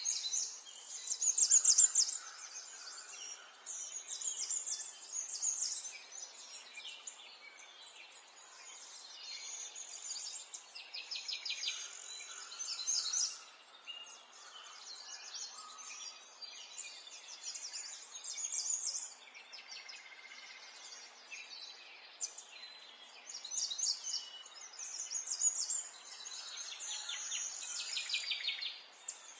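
Songbirds singing: overlapping chirps and rapid trills in short phrases every second or two, over a faint steady background hiss.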